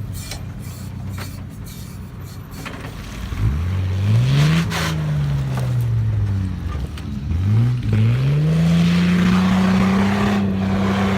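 Off-road vehicle engine running low, then revving up about three and a half seconds in and dropping back. It revs up again about eight seconds in and holds high revs steadily.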